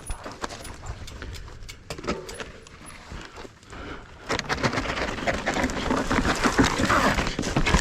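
Mountain bike riding down a dry, loose dirt trail: tyres crunching and sliding over the dirt with a stream of clicks and knocks from the bike. It gets much louder and rougher about four seconds in.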